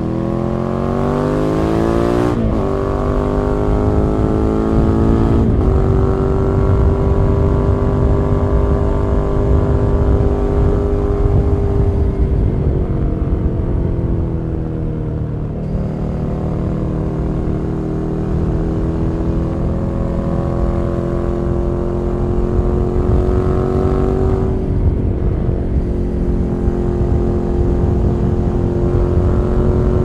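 Ducati Scrambler Nightshift's 803 cc air-cooled L-twin running through a Zard Zuma Euro5 slip-on exhaust while riding. It pulls hard, with sharp upshifts about two and a half and five and a half seconds in. It then runs at part throttle, the pitch easing off and building again, with another upshift near the end.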